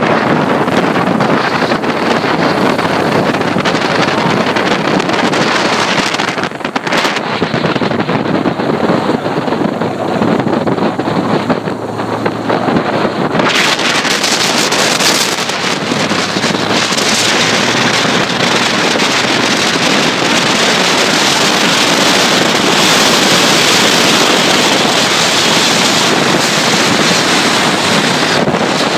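Motorcycle riding at speed: wind buffeting the bike-mounted microphone over the steady sound of the engine and tyres on the road. The noise changes abruptly twice, about a quarter and about halfway through.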